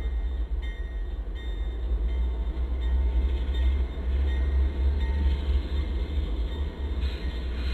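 Freight train's lead diesel locomotives, a lash-up of GE and EMD road units, running past at a distance: a steady low rumble, a little louder in the middle.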